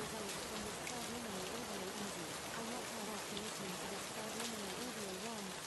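Steady rain sound with a quieter voice speaking underneath it: spoken affirmations layered beneath a rain track, as in subliminal audio.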